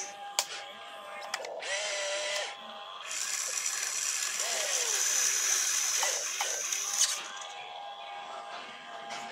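Radio-controlled excavator's electric motors whirring in bursts as the arm lifts, swings and dumps dirt into the dump truck, the hiss switching on and off with each movement. A couple of sharp clicks, one near the start and one about seven seconds in.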